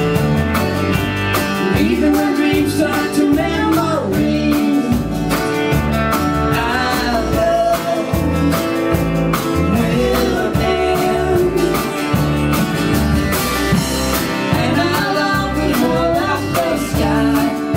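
Live country-blues band playing over a steady beat: strummed acoustic guitar, electric guitar and electric bass, with a lead line that bends in pitch over the top now and then.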